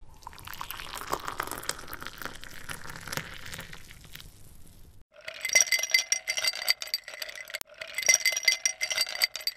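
Intro sound effect of glassy clinking and tinkling. For about five seconds it is a dense crackling shimmer; then, after a sudden cut, chime-like ringing tones sound with a rapid scatter of clinks.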